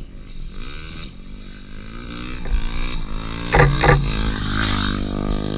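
Supermoto motorcycle engine approaching on the track, growing louder and rising in pitch as it comes nearer. Two loud short clicks come about three and a half seconds in.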